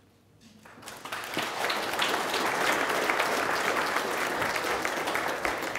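Audience applauding. The clapping starts faintly about half a second in and quickly builds to a steady level.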